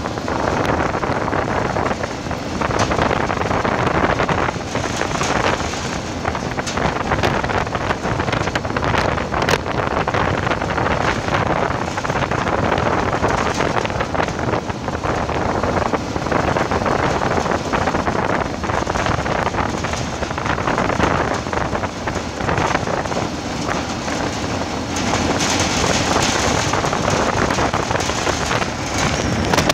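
A 4x4 driving a gravel trail: tyres crunching over loose gravel with scattered pings and clicks of stones, under the vehicle's running noise and wind buffeting the microphone.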